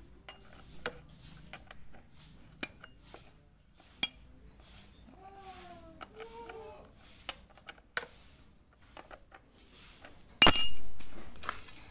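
Metal clicks and scrapes of a T-handle socket wrench turning the bar nuts on a chainsaw's clutch cover. A few wavering, meow-like calls come about five to seven seconds in. A single loud, ringing metal clank comes near the end.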